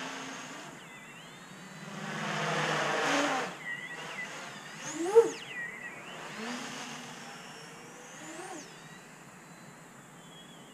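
Large 800 mm X-Class quadcopter on 12S flying past, its motors and propellers whining and rising and falling in pitch as the throttle changes. It is loudest about two to three seconds in, with a short sharp peak about five seconds in.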